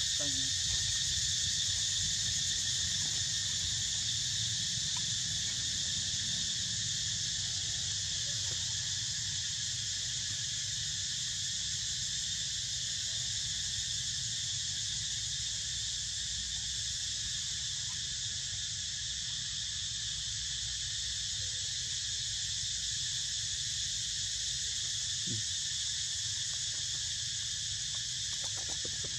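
A chorus of insects buzzing steadily in a high-pitched drone that holds without a break.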